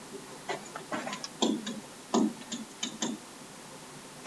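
Pen stylus tapping and clicking on a tablet screen during handwriting: about a dozen sharp, irregular ticks from about half a second to three seconds in.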